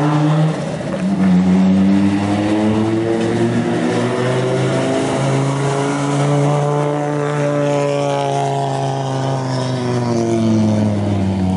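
Rally car engine running hard, its note climbing over several seconds and then falling away toward the end.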